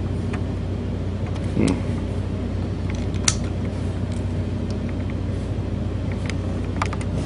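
Steady low hum and rumble, with a few faint clicks and taps, the sharpest about three seconds in.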